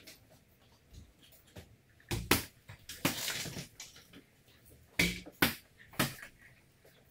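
Several sharp knocks and thuds at irregular spacing: two close together, then three more, with a brief rustling scrape between them.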